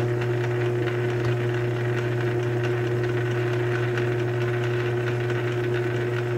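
South Bend 9A lathe running steadily under power, a constant hum, as the half nuts feed the carriage along the lead screw to cut a metric thread.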